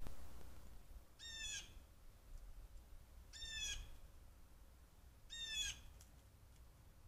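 A bird calling three times, about two seconds apart, each call short and falling slightly in pitch.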